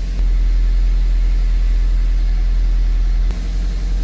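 Toyota MR2 Spyder's 1.8-litre four-cylinder engine running steadily at idle, a low drone that grows louder about a quarter second in and drops back near the end.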